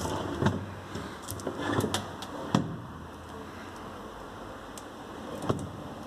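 Plastic drawer of a DEXP RF-MN552DSY/BGI refrigerator being slid in and out on its runners, with several sharp knocks and a short scrape where it catches partway. The owner blames the snag on a stray bit of plastic moulding flash getting in the way.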